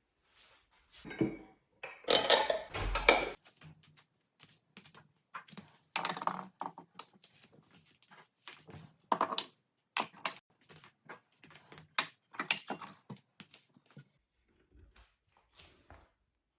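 Dishes and utensils being handled: an irregular run of clinks, knocks and clatters, busiest about two to three seconds in and again around ten to thirteen seconds.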